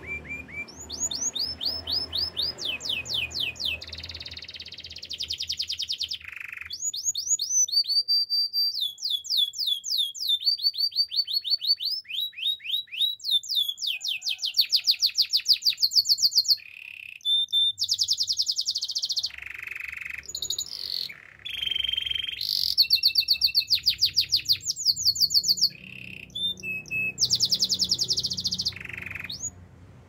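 Domestic canary singing a long song of trills: runs of quick, evenly repeated high notes, each run on a different pitch, with short breaks between them.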